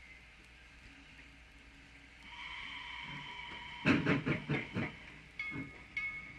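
USATC 0-6-0 steam locomotive No. 9: its steam whistle sounds about two seconds in, followed by a quick run of sharp exhaust chuffs as it works steam, with short whistle notes near the end.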